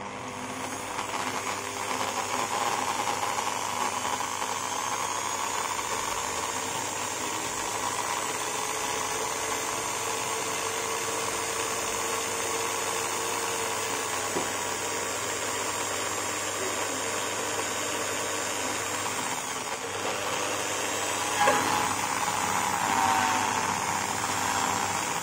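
Electric drill running steadily with a small 3–4 mm bit, boring a cable hole through a fibreglass rear roof spoiler. Near the end its pitch sags and recovers as the bit works through, with one sharp click.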